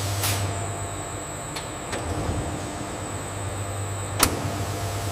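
Processing machinery running with a steady low hum and a thin high whine. Sharp clicks come about a third of a second in and twice close together before the two-second mark, and a louder click follows a little after four seconds.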